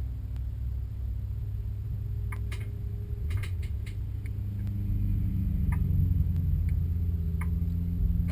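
Autocross car's engine idling, heard inside its roll-caged cabin as a steady low rumble. The engine note shifts slightly about halfway through. Light, sharp clicks come in a cluster a few seconds in and a few more times later.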